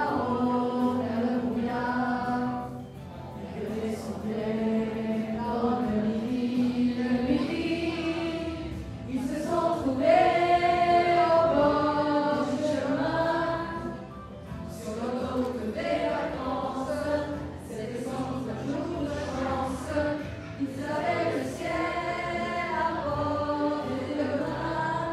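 Two young women singing a duet through handheld microphones, with long held notes.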